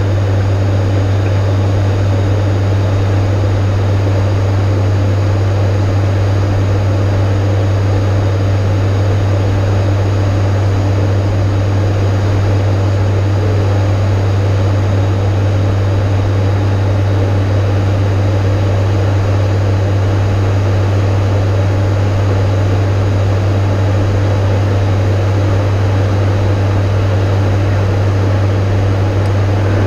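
Steady cockpit drone of an ATR 72-500's twin turboprop engines and propellers in flight: a deep, even propeller hum with a rush of airflow noise over it.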